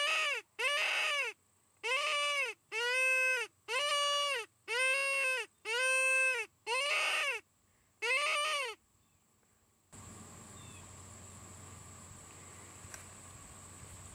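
Bleating distress call used to call in coyotes, repeated about nine times at a steady pace, each call under a second and rising then falling in pitch, with silent gaps between. From about ten seconds in, only faint steady outdoor ambience.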